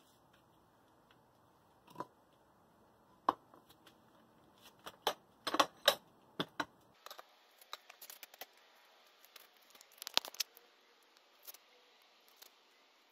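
Scattered knocks and clicks as the switched-off jackhammer and chunks of broken concrete are shifted about, with a cluster of sharper knocks about five to seven seconds in and another about ten seconds in.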